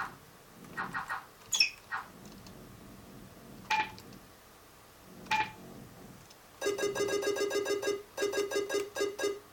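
Short electronic beeps and chirps, then from about two-thirds of the way in a fast run of evenly repeated warbling tones, like a ringtone or alert played through a small loudspeaker.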